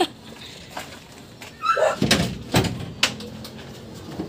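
Three sharp knocks on the van's body, about half a second apart, a little after two seconds in.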